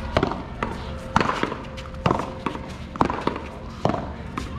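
One-wall paddleball rally: the rubber ball smacked back and forth by paddles and off the wall. A string of sharp smacks, the loudest about once a second.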